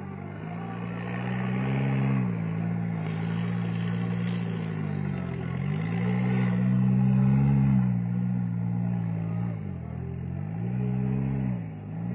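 Rock crawler engine revving up and dropping back about three times as the buggy works its way up through a rock obstacle.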